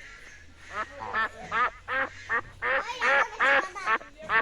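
Domestic ducks quacking: a run of short, nasal quacks, about two or three a second, beginning just under a second in and getting louder.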